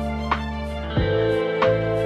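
Gentle instrumental background music: held chords with a few sharp struck notes.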